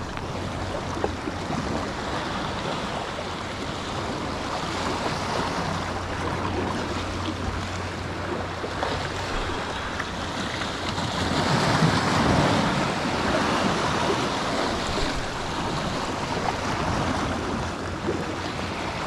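Surf washing against the jetty's granite blocks: a steady rush of broken water that swells louder about halfway through.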